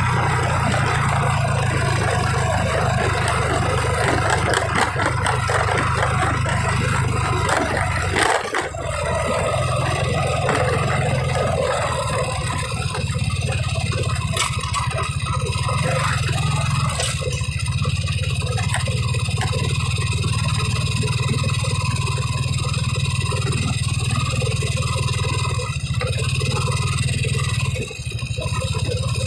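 Steady low hum of a car's engine and road noise heard from inside the cabin while driving slowly in traffic, with one short knock about eight seconds in.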